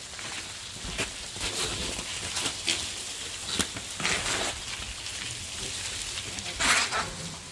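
Mountain bike tyres crunching and skidding on dirt, in several short noisy bursts with scattered clicks and knocks, the loudest near the end.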